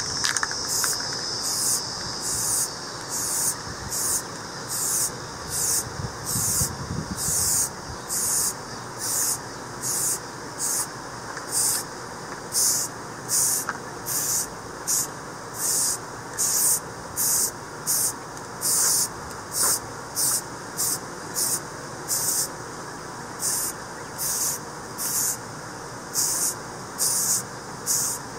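Aerosol spray can of self-etching primer hissing in short, regular bursts, about two a second, as the final primer coat is sprayed on.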